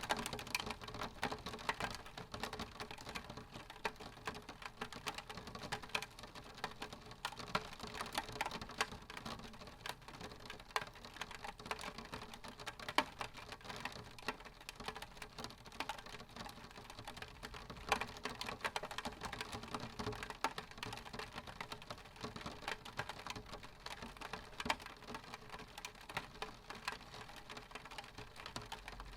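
Rain on a window pane: a dense, irregular patter of small taps of drops striking the glass.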